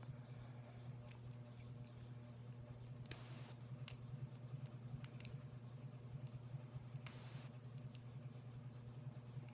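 Lock picks working inside a double-sided wafer padlock, giving light metallic clicks and ticks. Two short scraping rasps come about three and seven seconds in.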